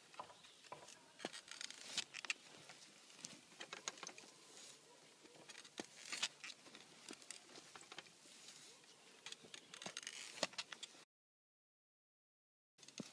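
Steel tines of a foot-pushed hand digging fork with a comb frame working loose soil. Earth crumbles and patters through the tines amid scattered scrapes and clicks. The sound cuts out completely for nearly two seconds near the end.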